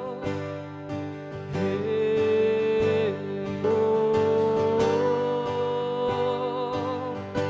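Background music with guitar accompaniment and long held melody notes that waver in pitch, sliding up into new notes twice.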